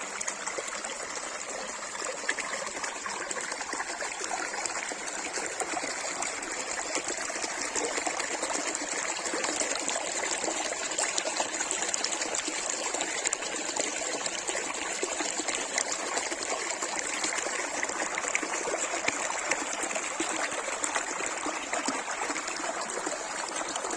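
Water running and trickling steadily, with many small splashes, like a small stream.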